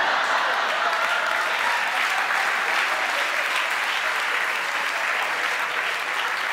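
A theatre audience applauding steadily, with laughter mixed in, in response to a comedian's punchline.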